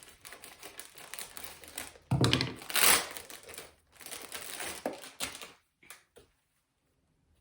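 Packaging around a pillowcase being opened by hand and crinkling. The loudest stretch comes about two seconds in, and the sound dies down to a few light clicks after about five seconds.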